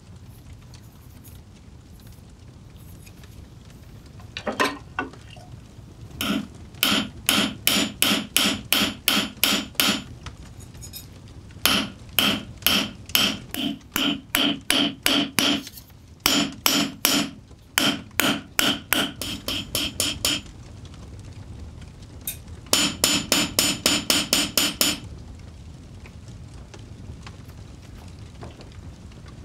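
Hand hammer striking a small flat metal knife-handle plate on a steel anvil in quick runs of light blows, about four a second. Each blow rings. There are four runs with short pauses between them, after a single stroke a few seconds earlier.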